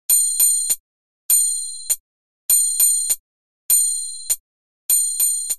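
A small metal bell rung in quick groups of two or three strings, each ring clear and high and dying away briefly, with a group about every second and a bit.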